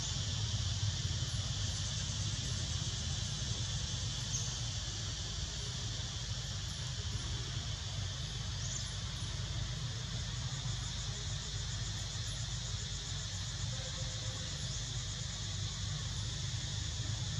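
Steady, high-pitched insect chorus droning without a break, over a constant low rumble.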